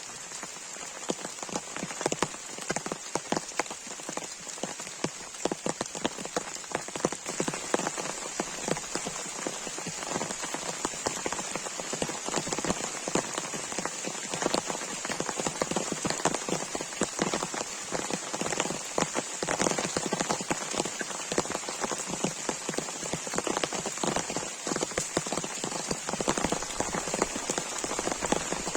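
Heavy rain falling steadily, with dense, closely spaced drop hits pattering on a nearby surface.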